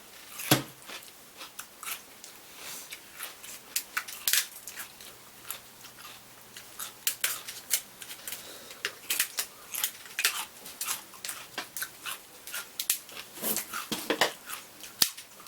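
Seafood-boil eating sounds: crab and crawfish shells cracking and being picked apart, with chewing and lip smacking, heard as a steady run of irregular sharp clicks and crackles.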